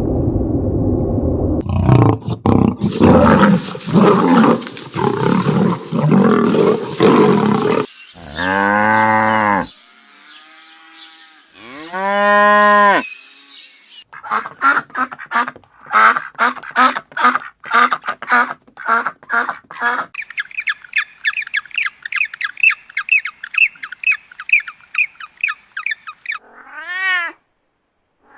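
A string of different animal calls one after another. First comes a loud, rough, noisy stretch. Then two long low calls, a run of rapid chirping pulses, and a run of high quick calls, ending with a short arched call much like a cat's meow.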